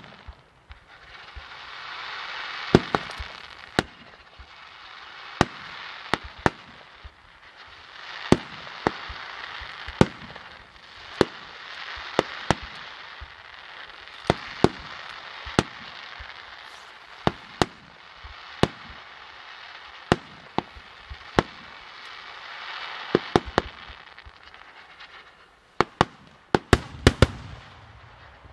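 Itria Fireworks aerial display: firework shells bursting with sharp bangs about once a second, over a rushing hiss that swells and fades. Near the end comes a quick cluster of bangs.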